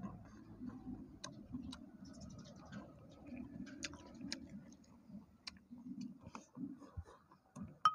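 A person chewing pig skin and rice with the mouth, with soft wet mouth sounds and scattered small clicks and lip smacks, and one sharper click near the end.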